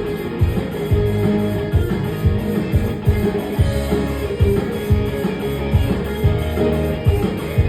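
Live band music: guitar over drums, with drum hits about two a second and no singing.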